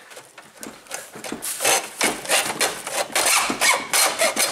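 A hacksaw cutting through an oil filter's steel canister held in a vise, with loud back-and-forth rasping strokes. They are slow and uneven for the first second or so, then settle into about three strokes a second.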